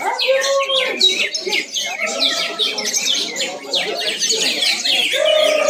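Contest songbirds chirping in a fast, dense stream of high, quickly falling notes. A lower, drawn-out tone sounds under them at the start and again near the end.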